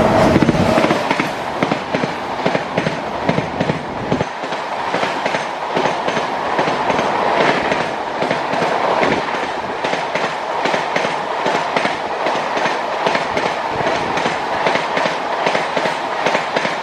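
WAP-7 electric locomotive passing close by with a loud low rumble, which fades about four seconds in, leaving its passenger coaches rolling past with a steady clickety-clack of wheels over rail joints.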